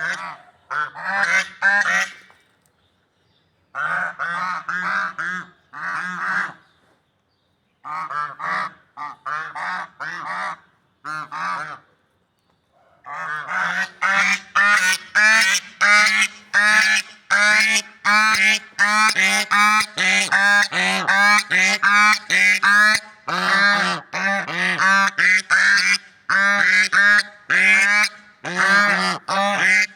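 Swans honking over and over in quick runs of calls, in clusters with short pauses through the first half, then calling almost without a break from about halfway on.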